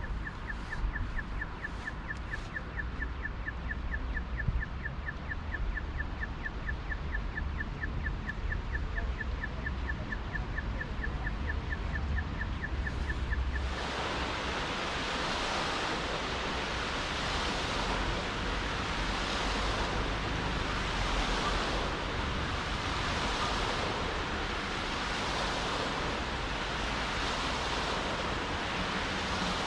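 Rain falling in a city street, a steady hiss over a low rumble, with a fast, even electronic beeping at one pitch, about four beeps a second, for the first half. About halfway through the beeping stops at once and the rain hiss turns suddenly louder and fuller, swelling and fading every couple of seconds.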